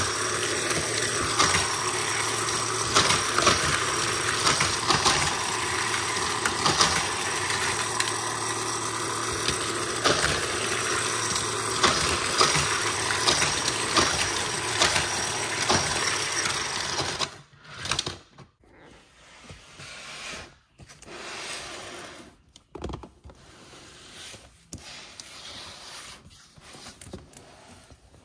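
Toy race track's speed booster running with a steady mechanical whir and hum while small toy cars clatter and click on the plastic track. It stops abruptly about two-thirds of the way in, leaving only quiet rustles and knocks of plastic and cardboard being handled.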